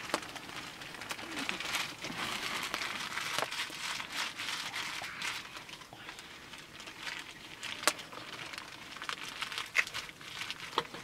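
Hands crumpling and rubbing a piece of dry, crinkly material in a continuous rustle, with a couple of sharp clicks near the end.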